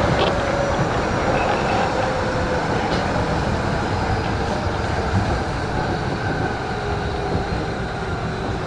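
Cabin running sound of an Osaka Municipal Subway Series 10 train on the underground Midosuji Line: a steady rumble of wheels on rail, getting gradually quieter.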